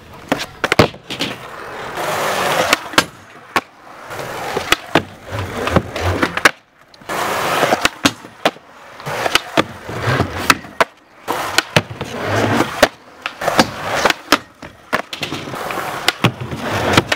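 Skateboard rolling on concrete on soft 3D-printed wheels, in several runs of rolling noise broken by sharp clacks of the board popping, striking the ledge and landing.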